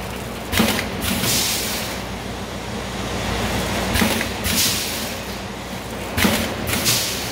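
An automatic granule pouch packing machine running through its cycles about every two seconds. Each cycle is a clack followed about half a second later by a short hiss, over a steady machine hum.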